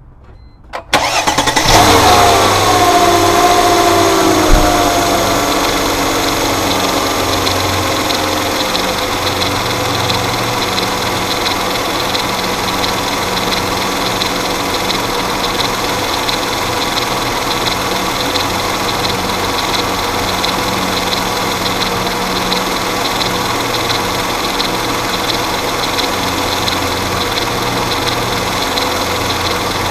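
Mercedes-Benz M112 V6 engine cranked by the starter and catching about two seconds in, its revs falling over the next several seconds as it settles to idle. It then idles steadily with the noise that the owner puts down to the timing chain, a noise very pronounced at idle.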